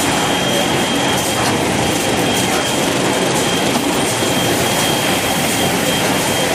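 Kitchen-towel roll production line machinery running: a steady mechanical din with a thin, high-pitched whine over it.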